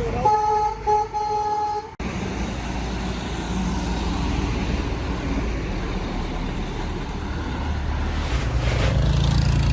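A vehicle horn sounds for under two seconds, briefly broken in the middle. After a cut, a truck engine runs steadily amid road traffic noise, its note rising slightly near the end.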